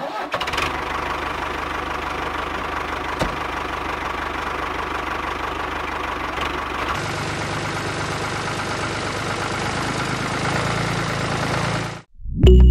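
Tractor diesel engine running steadily at an idle-like clatter, with a change in tone about seven seconds in; it cuts off shortly before the end.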